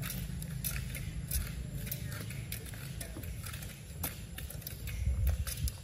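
Long-tailed macaque biting and tearing at the husk of a green coconut: irregular crisp clicks and scrapes, over a steady low rumble that swells near the end.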